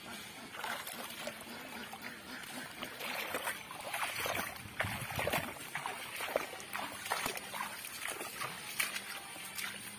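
Water splashing and trickling in irregular bursts, busiest in the middle, as a plastic bottle fish trap is lifted out of shallow, weedy canal water.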